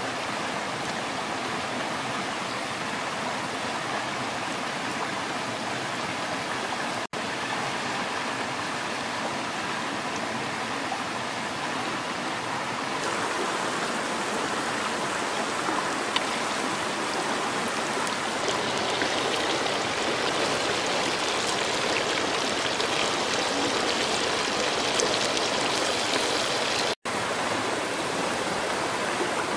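Rushing stream water running over rocks, a steady noise broken by two brief gaps.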